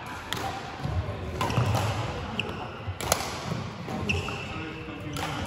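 Badminton doubles rally: several sharp racket strikes on the shuttlecock, the loudest about three seconds in, with short shoe squeaks and footfalls on the court floor.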